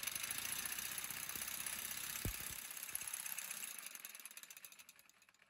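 Reciprocating saw running a DIY vibration test rig, rapidly shaking a steel jig of two flange bushings clamped by a 3/8-16 bolt with a nylon lock nut and split lock washer. It makes a fast, even rattling buzz with one short click a little past two seconds in, then fades away over the last couple of seconds.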